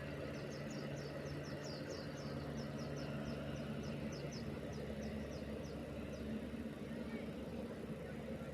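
An engine running steadily, a low even hum, while a small bird chirps rapidly, short high notes about three a second, until about six seconds in.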